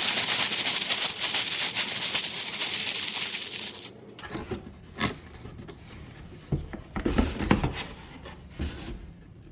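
Packaging being torn open and rustled for about four seconds, then scattered rustling and a few light knocks as the contents are handled.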